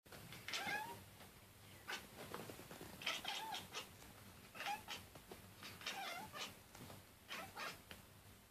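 A pet cat making odd short calls, about five of them spaced a second or so apart, each with a brief bending squeak.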